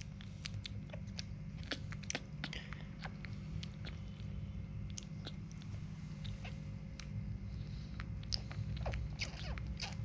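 Baby monkey sucking milk from a baby bottle: irregular small wet clicks and smacks of its mouth on the teat, over a low steady rumble.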